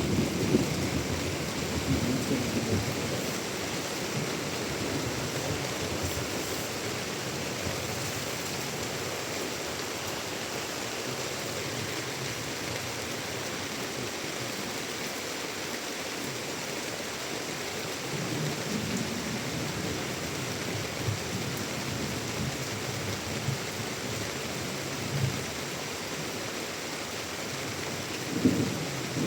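Heavy monsoon rain falling steadily, a continuous hiss, with a few low rumbles swelling up near the start, partway through and near the end.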